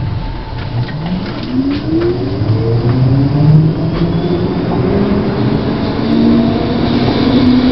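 Brussels 3000/4000-series low-floor tram (Bombardier Flexity Outlook) running through an underground station, heard from inside the tram. Its traction-motor whine rises in pitch over the first few seconds as the tram picks up speed, then levels off over the rumble of wheels on rail.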